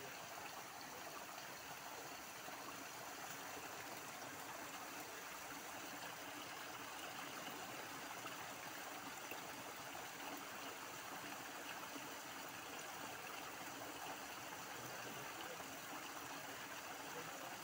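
Creek water running steadily, an even rushing hiss with no breaks.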